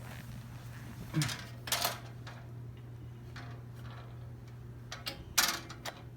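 A few sharp clicks and knocks from handling a metal box fan cabinet and its grill, about a second in, just before two seconds and twice more near the end, over a steady low hum.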